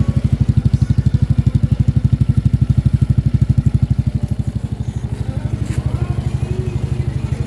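Suzuki Raider J Fi 115's single-cylinder four-stroke engine idling, heard close to the exhaust: a steady, even putter of rapid exhaust pulses.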